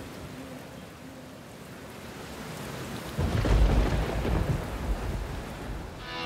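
Steady rain, with a deep roll of thunder breaking in about three seconds in and rumbling for a couple of seconds.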